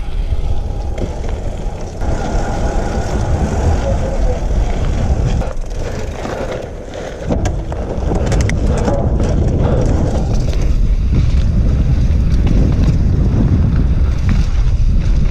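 Mountain bike riding down a dirt trail, heard from the rider's camera: a steady rumble of wind buffeting the microphone mixed with tyre noise on the dirt. A cluster of sharp clicks and rattles from the bike comes around the middle, and the noise grows louder about eight seconds in as the speed picks up.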